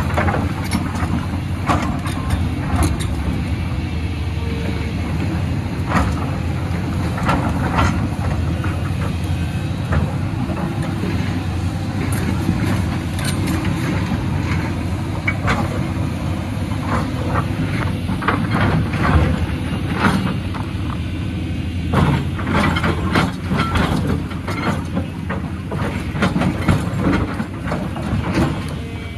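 Caterpillar 323 tracked excavator's diesel engine running steadily under load while its bucket digs into a rocky slope. Rocks and earth clatter and knock as they are scraped loose and tumble down, most often in the second half.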